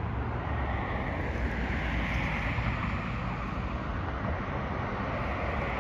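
Cars passing on a road: a steady rush of tyre noise that swells and eases, with wind rumbling on the microphone underneath.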